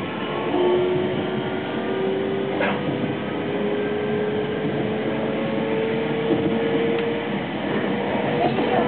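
JR West 225 series electric train running, its Toshiba inverter-driven traction motors giving a whine that rises slowly in pitch as the train gathers speed, over the rumble of wheels on rail, heard from inside the carriage.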